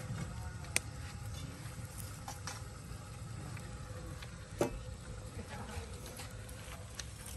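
Wood embers crackling under a large cooking pot: scattered sharp pops, two louder ones about a second in and near the middle, over a steady low rumble.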